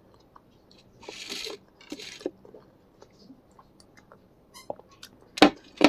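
Close-up eating sounds: chewing spicy instant noodles with small wet mouth clicks and two short hissing sounds about one and two seconds in, then sipping from a glass. A sharp knock comes near the end.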